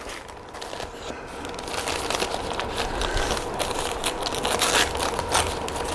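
Crumpled newspaper packing rustling and crinkling as hands dig through a cardboard shipping box. It grows louder over the first couple of seconds, then keeps up a busy run of crackles.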